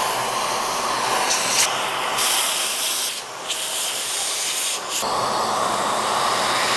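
Handheld cordless electric cleaning tool running, a steady hiss of rushing air as it clears dust from a computer board, easing off briefly a little past three seconds in.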